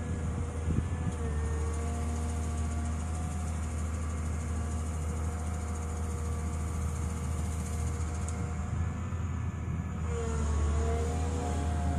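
Volvo EW160 wheeled excavator's diesel engine running steadily, with a hydraulic whine that bends in pitch as the boom lifts the ditch-mowing bucket out of the ditch. The machine gets louder about ten seconds in.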